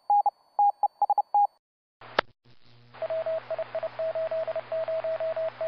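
Morse code sent as beeping tones of short and long dots and dashes. A clean higher tone keys out code for about a second and a half and stops. After a click, a lower-pitched Morse tone starts over steady hiss and mains hum, like code heard through a radio receiver.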